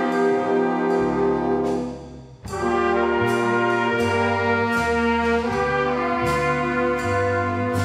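School big band playing: trumpets, trombones and saxophones hold chords over bass notes that move step by step. A little after two seconds in the band breaks off briefly, then comes back in together.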